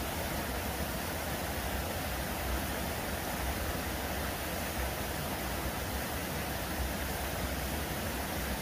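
Steady, even rush of water from a small waterfall and stream in a jungle pool.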